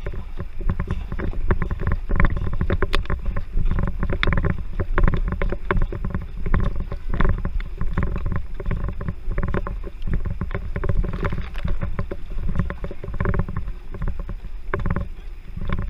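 Many canoe paddles digging in and splashing, with water churning, as a pack of racing canoes sprints off the start; the nearest strokes are the camera boat's own paddle. The splashes come thick and uneven, with no pause.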